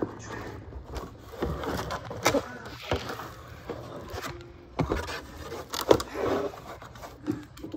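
Cardboard board-game box being handled and its lid worked at: scraping and rustling of cardboard with a few sharp knocks.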